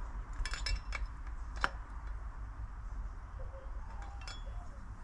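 Light metallic clinks of hand tools against metal bike parts, a small cluster in the first second and a sharper single clink about one and a half seconds in, a few more near the end, over a steady low hum.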